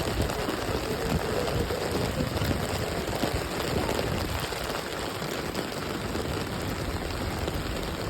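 Steady rain falling: an even hiss with an uneven low rumble underneath.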